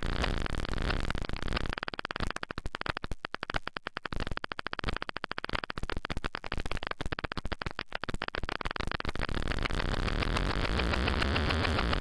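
Synthesized electronic noise from a modular synth patch: a harsh noise chopped into a fast stutter of clicks. It thins out through the middle and fills back in near the end.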